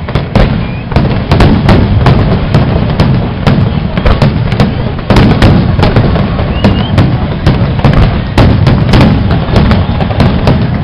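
Aerial fireworks display: a rapid barrage of shell bursts, several sharp bangs a second over a continuous low rumble.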